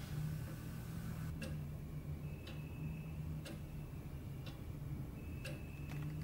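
Clock ticking about once a second, with a faint ring after some of the ticks, over a low steady hum.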